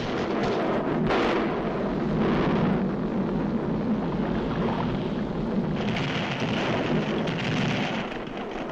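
Rumbling roar of a volcanic eruption as sound effects on a 1940s cartoon soundtrack: a dense, continuous roar that surges about a second in and again near six seconds.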